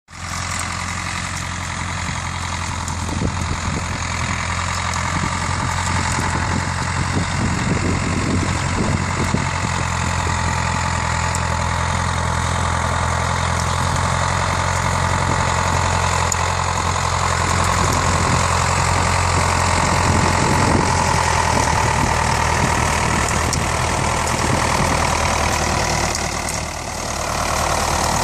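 David Brown 996 tractor's four-cylinder diesel engine running steadily while pulling a four-rotor hay rake through cut grass, growing louder as it draws near.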